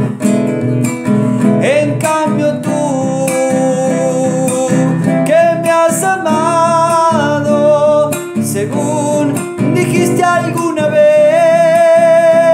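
A man singing a Spanish love song, accompanying himself on strummed acoustic guitar.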